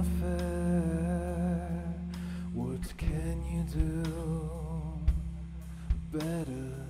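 Live rock band playing: a steady low bass drone under a wavering, held melody line that comes in two long phrases, broken about three seconds in, with a few sharp hits in the second half.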